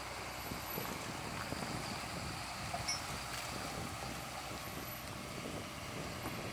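Farm tractor's engine running under load as it tows a car backwards out of a muddy ditch on a strap.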